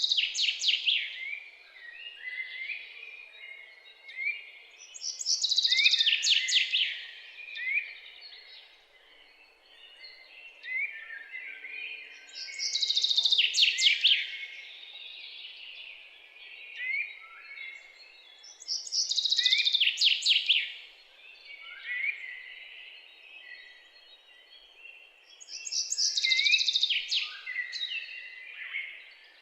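Songbirds singing: one loud, rapid, high song phrase comes back about every six to seven seconds, five times in all, each falling in pitch. Quieter short chirps fill the gaps between phrases.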